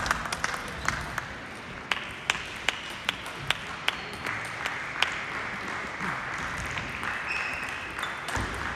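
Table tennis rally: the ball clicking sharply off bats and table in quick back-and-forth, about two to three hits a second, over the hum of a busy hall.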